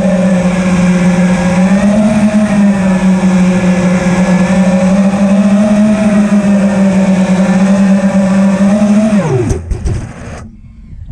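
Racing quadcopter's brushless motors and propellers buzzing steadily with a slightly wavering pitch in flight. About nine seconds in, the pitch drops and the sound cuts out as the drone lands, with a few knocks as it touches down.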